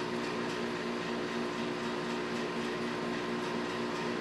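Steady mechanical hum from a running machine, with several fixed tones that do not change.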